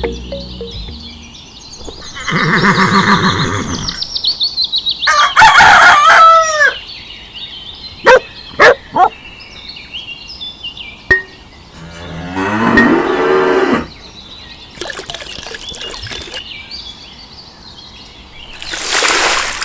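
A string of separate farm-animal calls, among them cattle mooing and a rooster crowing, with a few sharp clicks between them and a short hiss near the end.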